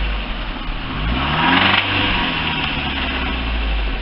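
Lifan car's petrol engine idling, revved once about a second in, its note rising and then falling back to idle. The engine has been treated with an anti-wear additive and is being run up to check for knocking and smoke; the metallic knocks are gone.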